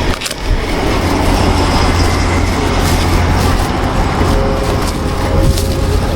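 Steady low engine rumble of a large road vehicle running close by in street traffic.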